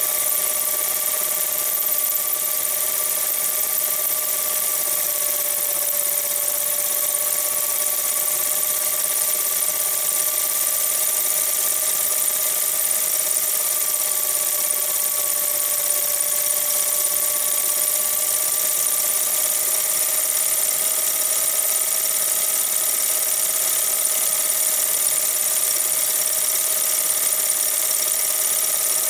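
Film projector running: a steady mechanical whirr with a high whine that drifts slightly in pitch, over constant hiss.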